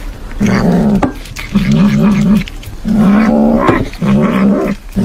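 A domestic cat growling over its food as it eats, in about five throaty pulses of roughly a second each, with short clicks of chewing between them.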